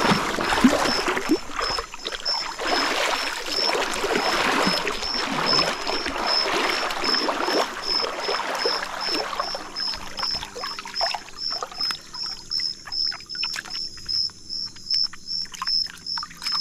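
Shallow river water splashing and sloshing, busy for the first half and then thinning to scattered small splashes and clicks. A steady high-pitched chirp repeats about three times a second throughout.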